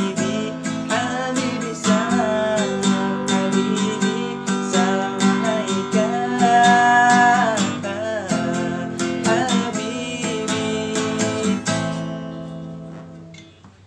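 Acoustic guitar strummed in a steady rhythm under a man's voice singing a gliding shalawat melody. About twelve seconds in, the strumming stops and the last chord rings out and fades away.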